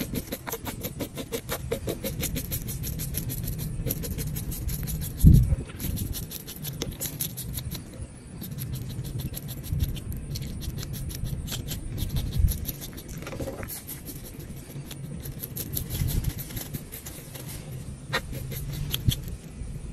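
A handheld fish scaler scraping scales off a weakfish (gray trout) on a cutting board, in runs of quick rasping strokes with a few louder knocks. A steady low rumble runs underneath.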